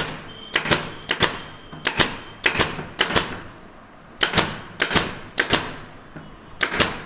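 INGCO compressor-driven pneumatic brad nailer firing about ten nails in quick, irregular succession into hard teak wood, each shot a sharp double clack as the piston drives the nail and returns.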